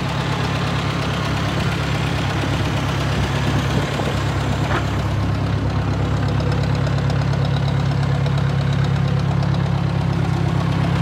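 Ford 801 Powermaster tractor engine running at a steady idle.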